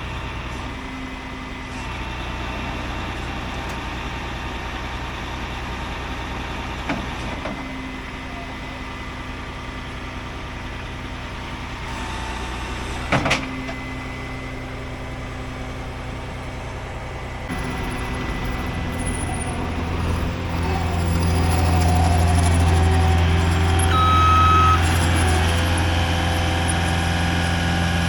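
Truck engine running steadily, then working harder, getting louder about 18 and 20 seconds in. A single sharp knock comes about halfway through, and a short high tone sounds near the end.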